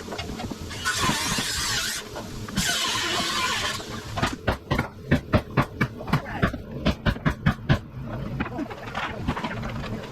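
Two roughly one-second bursts of hissing noise, then a quick run of about fifteen sharp knocks over some four seconds, like nails being driven into framing lumber.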